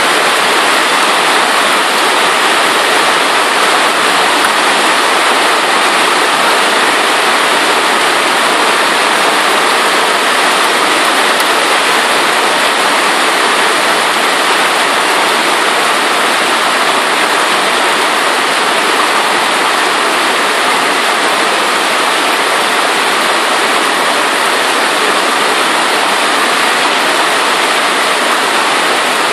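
Violent hailstorm: hail pelting the pavement and rooftops in a dense, steady hiss that never lets up.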